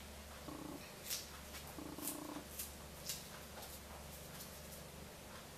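A steady low hum with a few faint sharp clicks in the first few seconds, from a small knife cutting through food held in the hand over a dish.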